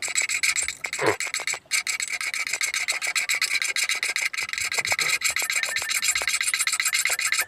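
Flat file rasping across the teeth of a steel jigsaw blade held in a bench vise, in quick repeated strokes: the dull blade is being sharpened.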